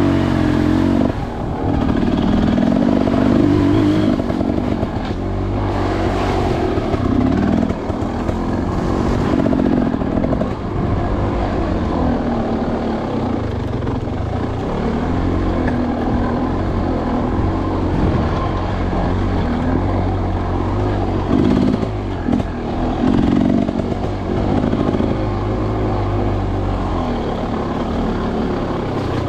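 Dirt bike engine being ridden hard, its pitch rising and falling continuously as the throttle opens and closes.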